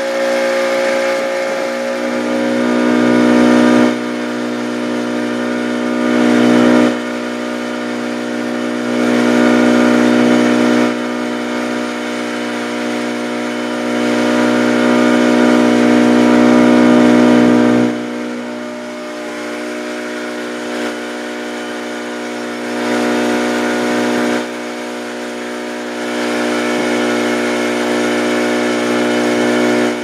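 Motorboat engine running steadily, its hum getting louder and quieter in sudden steps every few seconds.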